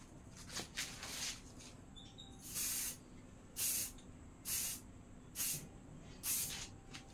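Aerosol spray paint can spraying glossy black onto a motorcycle fuel tank in short hissing bursts, about one a second, seven in all, the one about two and a half seconds in the longest.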